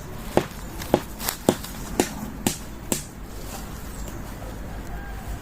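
Footsteps at a walking pace, about two a second: some seven steps over about three seconds, then they stop.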